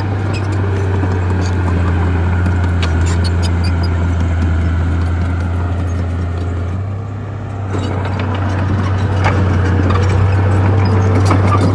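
Bulldozer's diesel engine running steadily with frequent metallic clicks and clanks, typical of a dozer's steel tracks at work. The engine sound dips briefly about seven seconds in, then comes back up.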